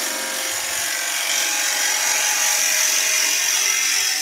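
Drill bit boring into a spinning oak blank on a wood lathe: a steady cutting hiss over the lathe's running hum, with a higher edge coming in about a second in.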